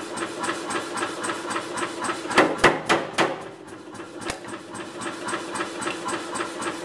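Power hammer striking a top tool into red-hot steel bar on a V-jaw tong jig: a quick run of about four heavy blows near the middle, over the steady hum and regular ticking of the running hammer.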